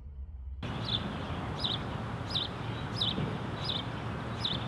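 A bird repeating a short, high, falling chirp about every three-quarters of a second over a steady background hiss.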